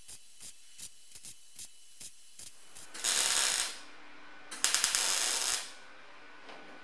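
MIG welder stitch-welding a steel patch panel into a car chassis: light, regular ticks about three a second at first, then two louder runs of welding noise of about a second each, the second starting about a second and a half after the first.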